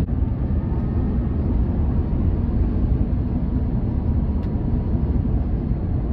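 Steady road and wind noise inside the cabin of a Tesla Cybertruck cruising at about 59 mph with a travel trailer in tow; the truck is electric, so there is no engine note, only an even low rumble.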